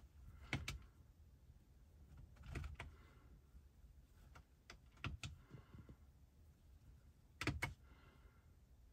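Clicks of the BMW iDrive controller knob being pushed and turned to step through the infotainment menus: short, sharp clicks, mostly in pairs, about five times.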